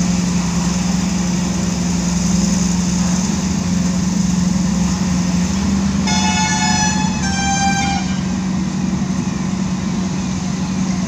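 Steady engine hum of a motor vehicle running close by, with two short horn blasts a little over six and seven seconds in.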